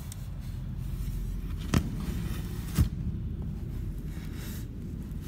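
Low steady rumble of handling noise on a hand-held camera, with two sharp knocks about a second apart near the middle.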